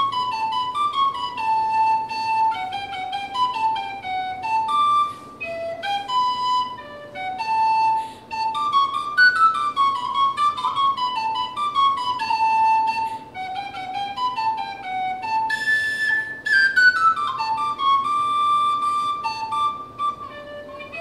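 Solo tin whistle playing a slow, single-line melody of held and stepping notes, with short breath pauses between phrases.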